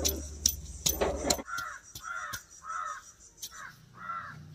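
A crow cawing, about five short caws in quick succession from about a second and a half in, after a few sharp clicks of handling in the first moments.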